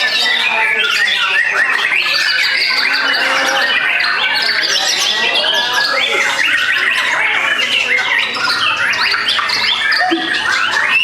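White-rumped shamas (murai batu) singing together at a songbird contest: a dense, unbroken chorus of fast trills, chirps and whistles from several birds at once.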